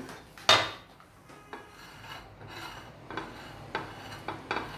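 A sharp knock of a utensil about half a second in, then soft, irregular scraping and rubbing as a spatula spreads guava syrup over a cake and rubs against the plate.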